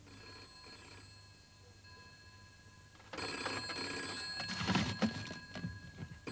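An electric bell, like a telephone or alarm-clock bell, starts ringing suddenly about three seconds in and keeps ringing, with knocks and rustling from it being handled soon after.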